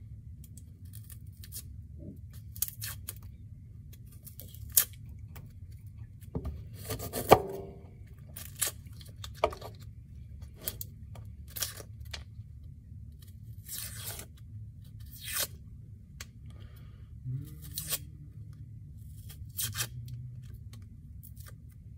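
Dry papery skin of a small onion being scraped and peeled off with a kitchen knife: a string of short crackling rips and scrapes, about one every second or so, over a low steady hum.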